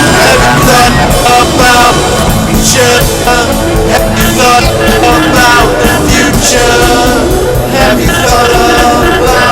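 Loud rock-style music with drums and a lead line that bends and glides in pitch.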